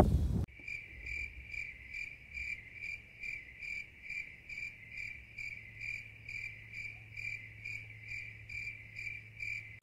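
Cricket chirping steadily, about three chirps a second. It starts abruptly about half a second in and cuts off suddenly at the end.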